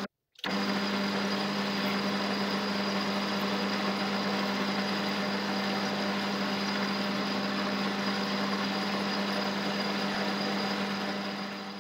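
Metal lathe running with a steady hum while a twist drill in the tailstock chuck bores into the end of the spinning workpiece. The sound drops out briefly just after the start, then carries on unchanged.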